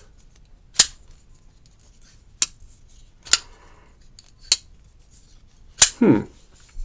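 Kizer Feist XL folding knife flipped open and snapped shut on its bearing pivot: six sharp metallic clicks, a second or so apart, as the blade locks open and closes. A short falling hum follows just after the last click.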